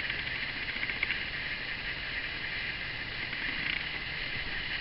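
Steady hiss of background noise with a few faint ticks, and no speech.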